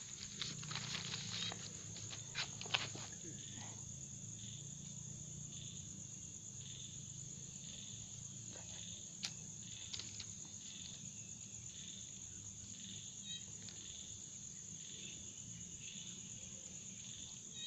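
Insects, crickets, chirping faintly: a steady high trill with a shorter chirp repeating about once a second, over a faint low hum. A few faint taps sound in the first three seconds.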